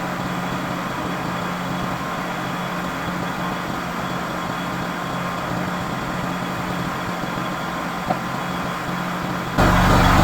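Sawmill engine running steadily with a low hum, then suddenly louder and fuller about nine and a half seconds in.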